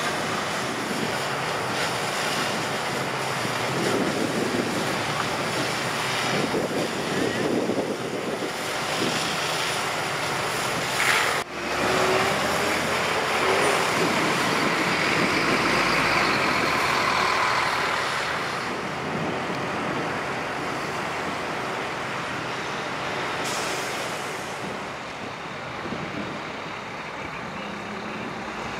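Fire engine and truck engines running amid steady traffic noise. Through the middle stretch a hose nozzle sprays water with a hiss. The sound breaks off sharply once, about a third of the way in.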